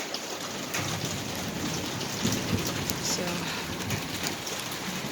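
Heavy rain with big drops pattering steadily on surfaces close by, with a low rumble underneath through the middle of the stretch.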